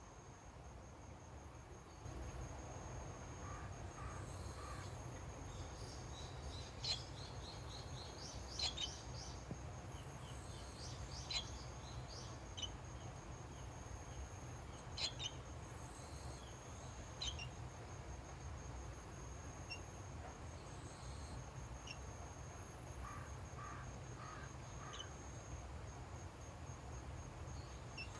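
An insect's steady, pulsing high-pitched trill, with short, sharp bird chirps scattered through it, most of them in the first half, over a low steady rumble.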